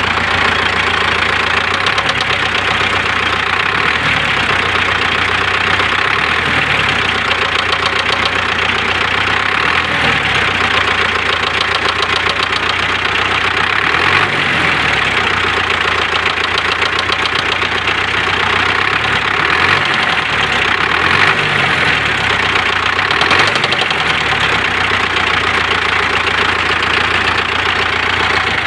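MTZ tractor's D-243 four-cylinder diesel engine running steadily, with a knock in the engine that has newly appeared.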